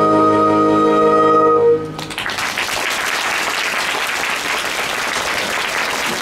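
A small band of violin, brass, saxophones and keyboard holds the last chord of a song, which cuts off about two seconds in; applause follows and continues.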